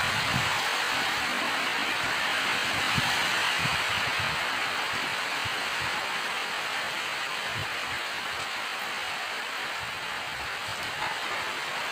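Steady rain falling, an even hiss with a few soft low thumps now and then.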